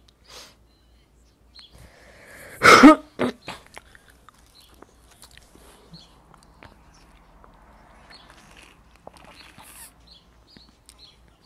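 A woman coughs once, loudly, about three seconds in, with a shorter cough or throat-clear right after. Faint sipping through a straw follows near the end.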